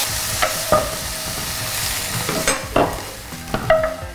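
Freshly seared chicken pieces sizzling in a hot frying pan as a wooden spatula scrapes them out into a ceramic baking dish. The sizzle fades about two seconds in, followed by a few knocks and scrapes of the spatula against the pan.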